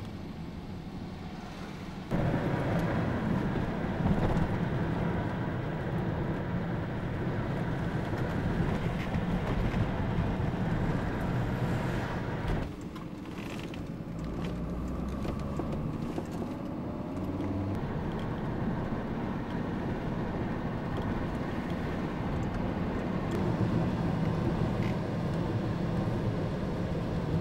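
Engine and road noise heard from inside a moving vehicle, steady throughout. It steps up about two seconds in and drops briefly around the middle.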